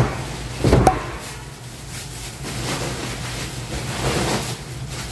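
Two thuds within the first second as foam sofa-bed sections are handled, then a steady rustling of plastic packaging being pulled off, over a steady low hum.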